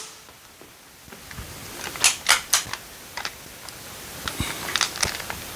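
Sharp clicks and taps of hands handling gear: a quick cluster about two seconds in and a few more near the end.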